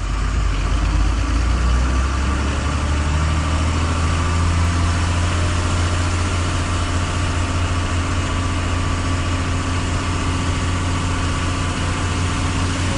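Truck engine running steadily, heard from inside the cab: a constant low drone with road and cab noise over it.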